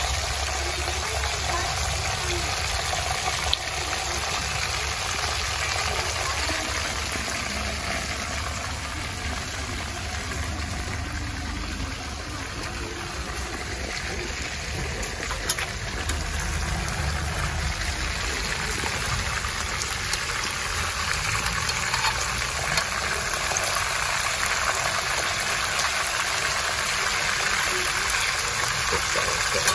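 Two whole red snappers frying in hot oil in a wide pan: a steady sizzle, with a couple of brief sharp clicks.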